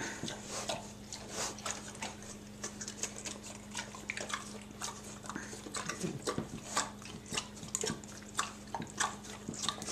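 Pet pigs eating ice cream off a spoon: many quick, irregular wet smacks and clicks of their mouths and chomping jaws.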